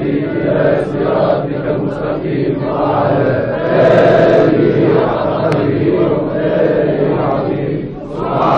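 A large crowd of men chanting together in unison, a drawn-out Islamic religious chant (dhikr) by many voices at once, dropping off briefly near the end before swelling again.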